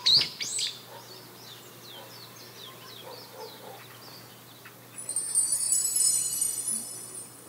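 Small birds chirping in quick repeated notes, loud at the very start and then fainter, continuing on and off. About five seconds in, a high bright chiming musical tone rings for about two seconds.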